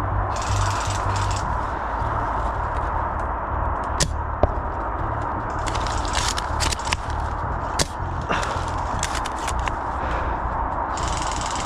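A few sharp, single airsoft shots, two about four seconds in and two more around eight seconds, over a steady wind rumble on the microphone. Short bursts of rustling come near the start, around six seconds and near the end.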